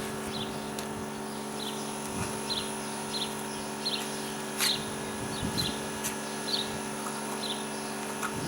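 A small bird chirping over and over, about two short high chirps a second, over a steady low hum. A sharp tap comes about four and a half seconds in, with a few soft scrapes.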